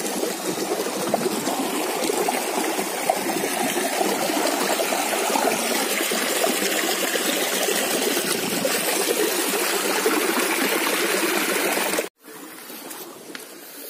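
Shallow rocky stream rushing and splashing over and between stones, a steady loud wash of water. About twelve seconds in it cuts off suddenly to a much quieter background.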